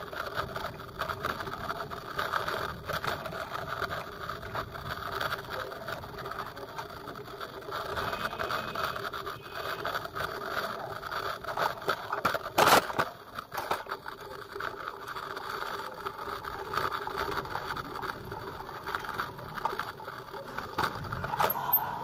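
A bike riding over a rough dirt street, with a steady running hum and rattling. There is one sharp knock about halfway through.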